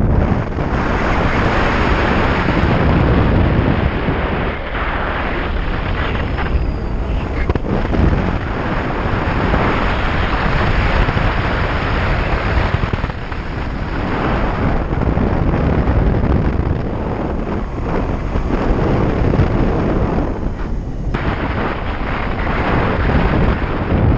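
Wind rushing and buffeting over a GoPro's microphone on a hang glider in flight. It is a loud, gusting noise that swells and eases, and it drops briefly about halfway through and again near the end.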